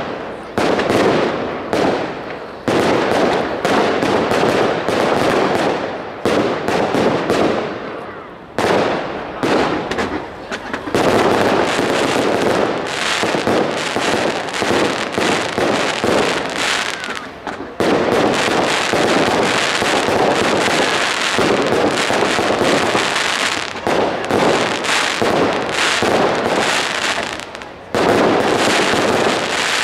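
Consumer fireworks bursting overhead in a rapid, almost unbroken barrage of bangs and crackles, dipping briefly a few times before each new volley starts.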